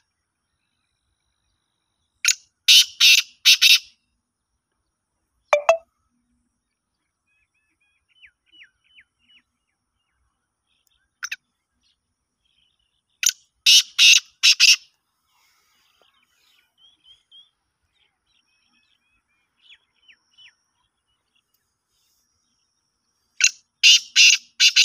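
Male black francolin calling three times, about ten seconds apart, each call a quick run of four or five loud, harsh notes. Faint short falling whistles from another bird come in between the calls.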